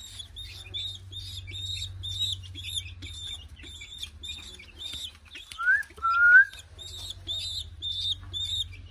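A bird's short high chirp repeating evenly about three times a second, with two louder rising calls about six seconds in.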